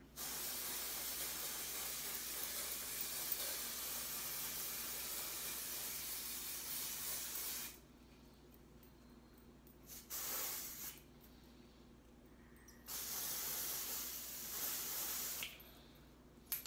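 Aerosol can of pink spray-on hair dye hissing as it is sprayed onto hair, in bursts: one long spray of about seven seconds, a short puff about ten seconds in, then another spray of a couple of seconds.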